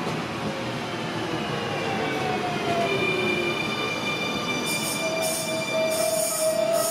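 Sydney Trains Millennium (M-set) double-deck electric train pulling away from the platform: its traction drive whines in several tones that slide in pitch as it gathers speed, over the rumble of wheels on rail. Short hissing bursts come in over the last two seconds.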